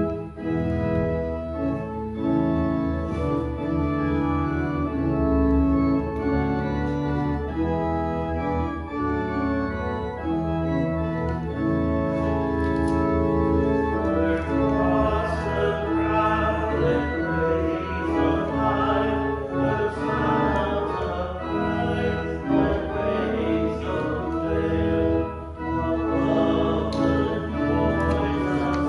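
Church organ playing a hymn, with held chords at first; about halfway through the congregation joins in singing.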